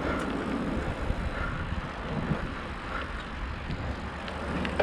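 Bicycle ride heard through an action camera: wind rumbling on the microphone over the rolling noise of the bike. A few faint, short, high squeaks come through.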